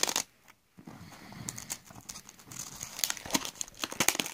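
Thin clear plastic film crinkling in irregular crackles as it is peeled off a combination waterstone. There is a brief near-silent pause about half a second in.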